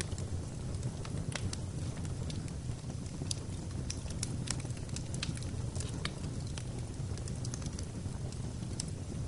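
Fire burning in a fireplace: a steady low rumble of the flames with irregular sharp crackles and pops, some of them a few in quick succession.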